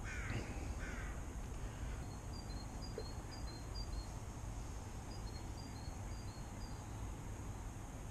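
A crow cawing twice in the first second or so, then faint high chirps from a small bird in two short runs.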